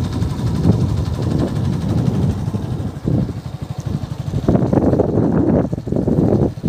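Vehicle engine running while moving, with wind buffeting the microphone, the buffeting heavier from about four and a half seconds in.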